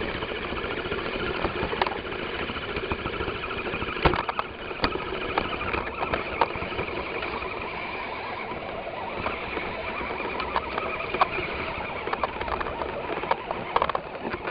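Scale RC crawler, an Axial SCX10, driving: a steady whir from its electric motor and gears with many sharp clicks and knocks scattered through, the loudest about four seconds in and again around eleven seconds.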